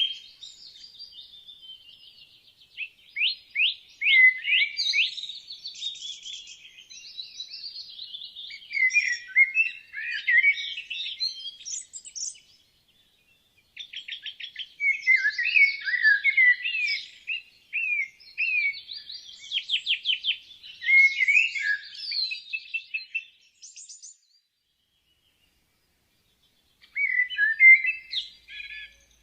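Woodland birdsong: bursts of rapid chirps, trills and warbling phrases, broken by a short pause in the middle and a silence of about three seconds near the end.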